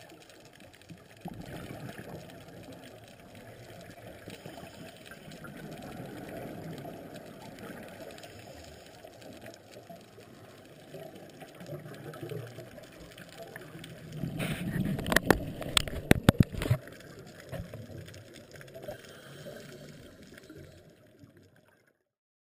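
Heard underwater: the low rush and gurgle of scuba divers' regulator exhaust bubbles. The bubbling swells to a louder burst about two-thirds through, with several sharp clicks, and the sound cuts off just before the end.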